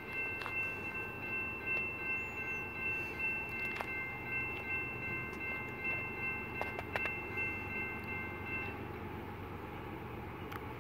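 Distant locomotive horn sounding a steady multi-note chord for about nine seconds, then stopping, over the low rumble of the approaching freight train.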